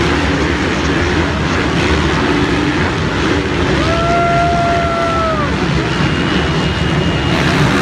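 A pack of motocross bikes racing around a dirt track, their engines making a loud, steady din. A single held tone cuts through for about a second and a half a little past the middle.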